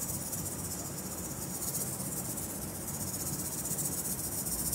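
A pair of handheld rattles shaken steadily in a fast, dense shushing rattle that stops abruptly at the end.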